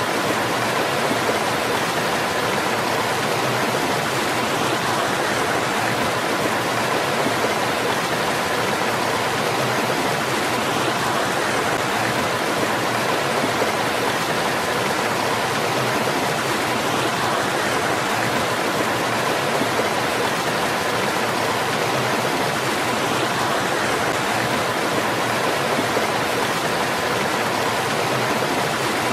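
Small stream spilling over rocks into a pool: a steady, even rush of falling water.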